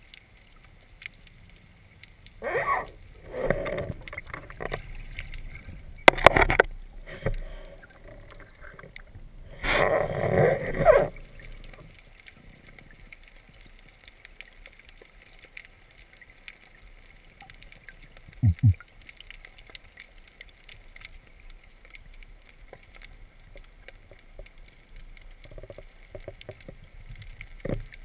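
Underwater water noise: several loud rushes of water in the first eleven seconds, then a quieter steady hiss with a short low hum about eighteen seconds in.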